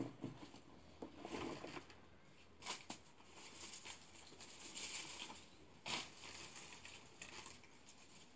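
Faint rustling and handling noises with a few soft clicks, two sharper clicks about three and six seconds in, over quiet room tone.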